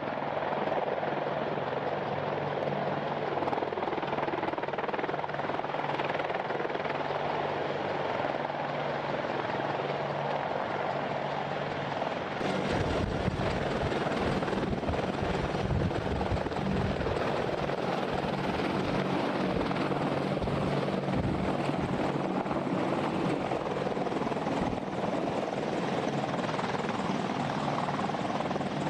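Boeing AH-64 Apache twin-turboshaft attack helicopters hovering low and settling to land, with steady rotor and turbine noise. From about twelve seconds in, a heavier, uneven low rumble joins it.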